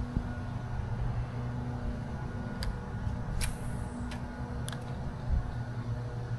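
Wind rumbling on the microphone over a steady low drone, with four short sharp ticks spread across the middle.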